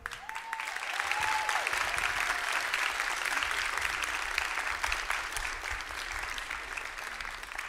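Audience applauding, building up over the first second and tapering off near the end, with a couple of short cheers near the start.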